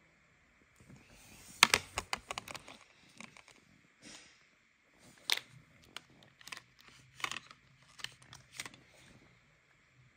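Hard plastic toy pieces clicking and clattering as they are handled. This is a toy dentist play set, with its hinged jaw model opening and closing. There are scattered sharp clicks and knocks, the loudest about a second and a half in.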